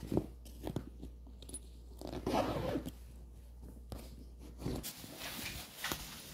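Rustling of a puffy nylon jacket and scraping, knocking handling noise as the phone is moved about close against the clothing, with a louder scratchy stretch about two seconds in.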